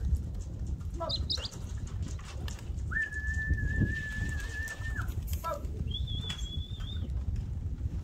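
Steady held whistles calling racing pigeons in to the loft: one long whistle of about two seconds in the middle and a shorter, higher one near the end, with short sliding chirps in between, over a steady low rumble.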